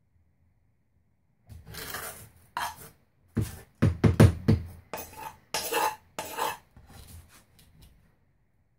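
A metal spoon scraping and clinking around the inside of a metal frying pan in a run of short, irregular strokes that start about a second and a half in, gathering up fine aluminium powder.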